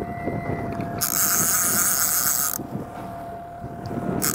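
Fishing reel's drag buzzing for about a second and a half, starting about a second in, as a hooked fish pulls line off the loosely set drag. Under it run a steady hum from the boat's running outboards and wind on the microphone.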